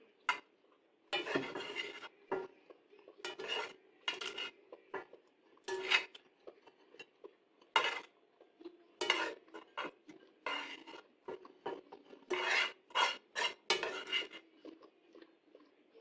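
Metal tongs scraping and clinking against a cast iron frying pan and a plate as cooked prawns are lifted out. About a dozen irregular clinks and short scrapes, a few of them drawn out over a second or so.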